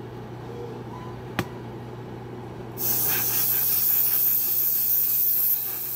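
Airbrush spraying metallic lacquer: a steady hiss of air and paint that starts suddenly about three seconds in, after a single short click, over a low steady hum.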